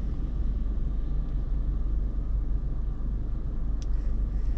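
Steady low rumble of a car heard from inside the cabin while it waits at a red light, its engine idling. There is a faint tick about four seconds in.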